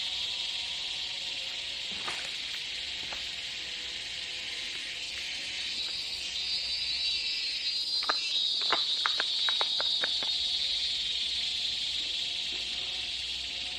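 Steady, high-pitched drone of forest insects. About two-thirds of the way in, a quick run of about nine sharp snaps or clicks comes at roughly four a second.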